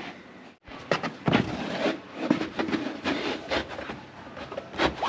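Moulded floor mat being pressed and rubbed into the plastic under-floor well of a Tesla Model Y's trunk by hand: a string of irregular soft knocks and rubbing scrapes.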